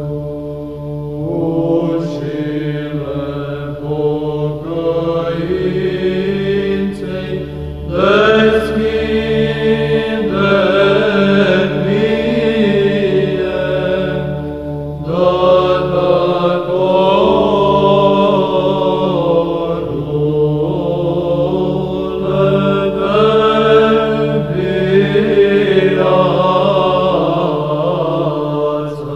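Orthodox church chant: voices singing a slow, melismatic melody over a steadily held drone note, with new phrases starting about eight and fifteen seconds in.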